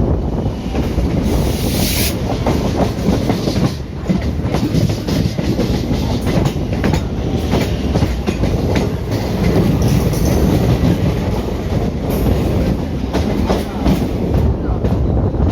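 Indian Railways ICF passenger coach running along the line: a steady rumble with wheels clattering over rail joints, many short clicks throughout, and a brief hiss about two seconds in.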